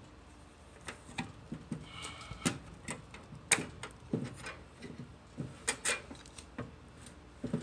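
Battery pack of sealed lead-acid batteries being slid into an APC 3000VA UPS's sheet-metal battery bay: a run of irregular knocks, clicks and short scrapes, the loudest knock about three and a half seconds in.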